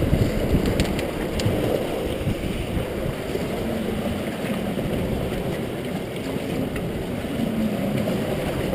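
Steady rush of river water churning around a rotary screw fish trap, with a few light clicks in the first couple of seconds.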